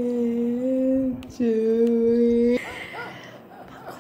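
A woman's voice holding two long, steady sung notes on nearly the same pitch with a short break between them, then soft laughter about two and a half seconds in.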